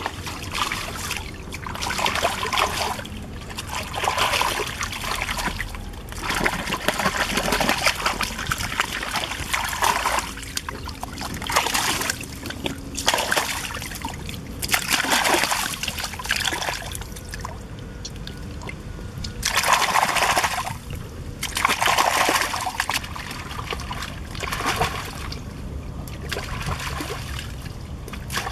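Water splashing and sloshing in repeated irregular bursts as a whole plucked raw chicken is rubbed and rinsed by hand in a shallow stream, over the steady trickle of the stream.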